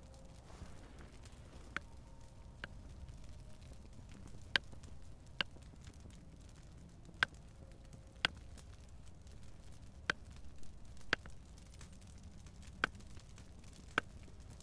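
Small twig campfire crackling: sharp single pops every second or so at uneven intervals, over a faint low background.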